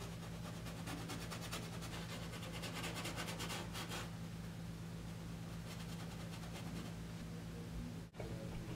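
Steady low electrical hum and hiss of room tone, with faint light scratching in the first half.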